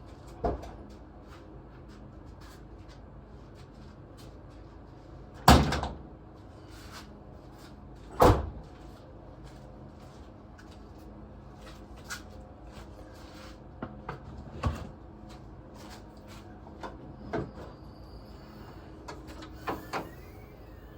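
Irregular sharp knocks and clanks of hard objects being handled and set down, over a steady low hum. Two loud knocks come about five and eight seconds in, with smaller ones scattered before and after.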